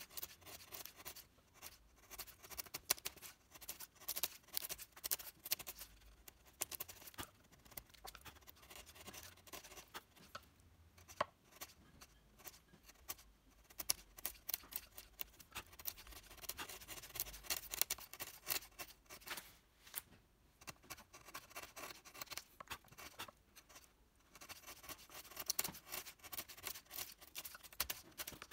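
Hand tool scratching and scraping on wood in quick, irregular strokes, with a few short pauses.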